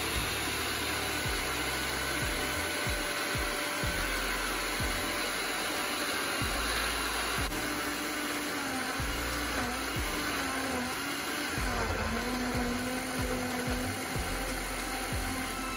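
Safeway countertop blender running steadily, whirring as it churns spinach, fruit and milk into a green smoothie. Its faint motor tone wavers in pitch for a few seconds about halfway through.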